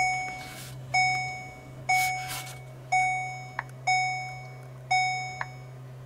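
Car's warning chime sounding six times, about once a second: each a single clear gong-like tone that fades out, over a steady low hum.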